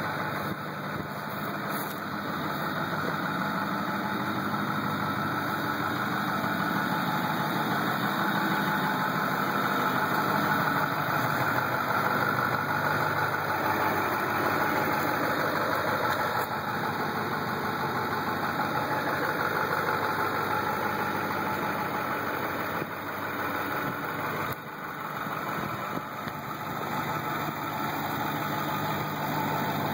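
Ford F-250 Super Duty's Power Stroke V8 turbo-diesel idling steadily, heard through its dual-tip exhaust.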